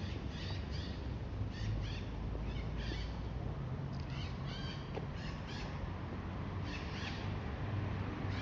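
Birds calling, short chirping calls in quick pairs and clusters, over a low steady hum of distant city traffic.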